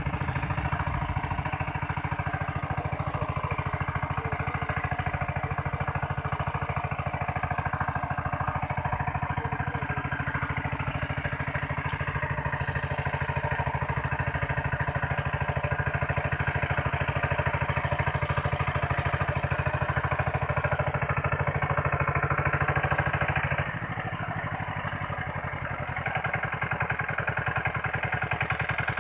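Walk-behind power tiller's engine running steadily with a fast, even chugging while its rotary tiller works the soil. A little over three-quarters of the way in, the engine sound drops for about two seconds, then picks up again.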